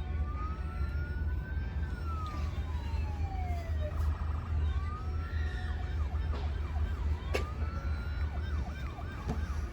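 A child imitating a fire-truck siren with his voice: long rising and falling wails, then quick up-and-down warbles. There is a sharp click about seven seconds in.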